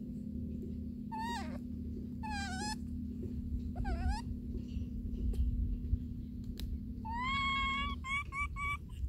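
Baby macaque crying: short, high, wavering squeals a second or so apart. About seven seconds in comes one longer drawn-out cry, followed by three quick short ones.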